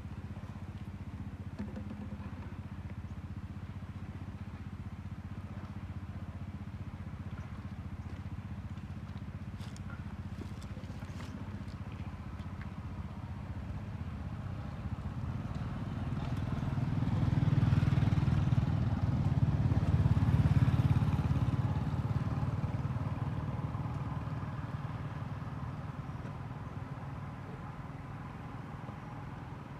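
Low engine rumble of a motor vehicle passing on the road: a steady low hum that swells to its loudest a little past halfway, then fades away again.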